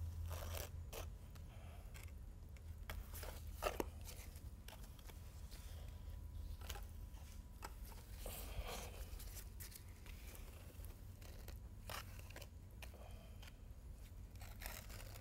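Small notch trowel scraping and spreading wet self-leveling urethane concrete over a concrete floor: a run of short, faint scrapes and clicks at irregular intervals.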